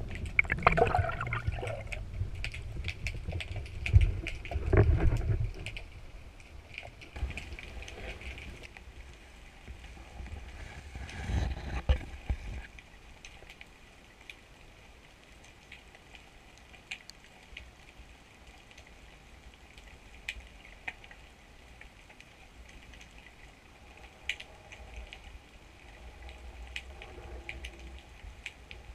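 Underwater sound picked up by a GoPro in its waterproof housing: low rushing and bubbling of water as the diver moves for the first few seconds, with a louder rush about eleven seconds in. After that it goes quiet as the diver holds still in the kelp, with scattered sharp clicks and crackles.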